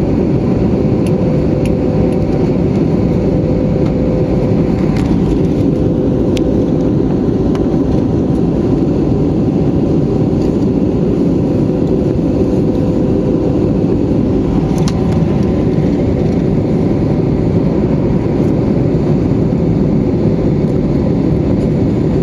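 Steady cabin roar of an Airbus A320neo's engines and airflow, with a few steady humming tones over the low rumble and a few faint clicks.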